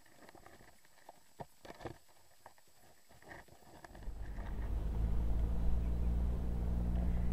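Faint scattered clicks and taps from an underwater camera on the lakebed. About four seconds in, a steady low rumbling hum comes in and grows louder.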